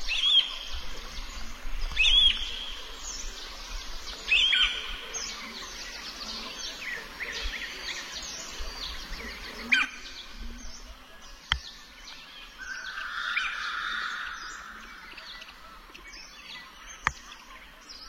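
Birds chirping and singing, with a louder call repeated three times in the first five seconds and a steady run of short chirps. Two sharp clicks come about two-thirds of the way in and near the end.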